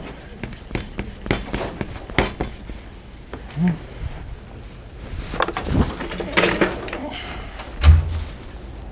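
Scattered light clicks and knocks of kitchen utensils against bowls and a pan on a work counter, with a heavier dull thump about eight seconds in.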